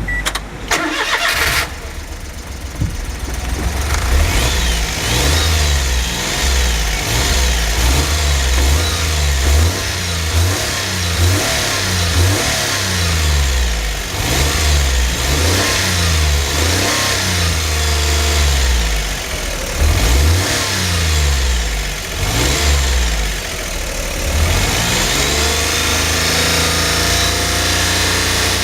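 Daihatsu S320V's EF-SE three-cylinder engine starting about a second in, then revved up and down again and again. It has an abnormal noise that its seller says comes even with good oil maintenance.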